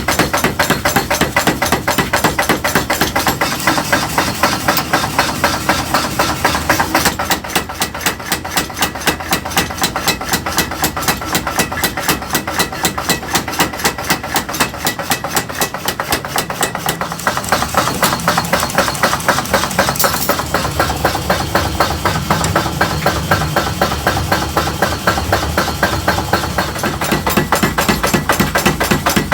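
Rapid, regular hammering on metal, several blows a second, keeping up a steady rhythm.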